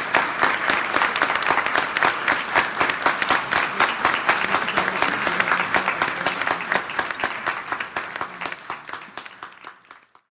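Audience applauding, a dense patter of many hands clapping that fades out over the last two seconds.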